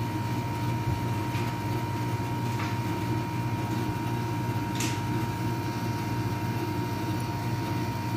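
Outdoor condensing unit of a split-type air conditioner running: the compressor and condenser fan give a steady, even hum while the unit runs under test during refrigerant charging.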